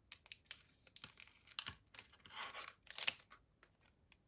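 A Pokémon booster pack's foil wrapper being opened by hand: a run of small crinkles and clicks, with two longer tearing rasps about two and a half and three seconds in.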